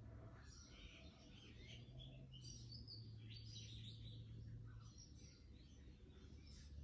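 Faint bird chirping and twittering, many short high calls following one another, over a low steady hum.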